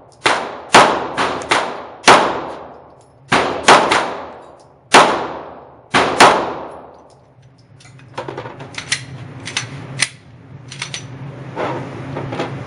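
Smith & Wesson M&P9 9mm pistol fired about ten times in quick strings, each loud shot ringing on in the reverberant indoor range. From about eight seconds in the firing stops, leaving light clicks and clatter over a low steady hum.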